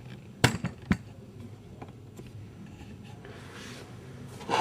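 Pacifica Glyde Torc 400 pottery wheel running with a low steady hum, its four new drive belts still untensioned and slipping. Two sharp knocks come about half a second and a second in, and a rushing noise builds near the end.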